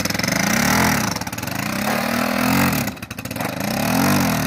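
Small step-through motorcycle's single-cylinder engine revving up and dropping back three times as it pulls away, the throttle blipped in surges as the rider tries to get the front wheel up.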